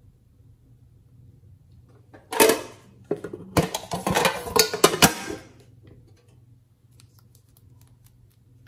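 A small pink handbag-shaped box being handled and opened: a short burst of clatter a little over two seconds in, then about two seconds of dense clicking and rattling with a few sharp knocks.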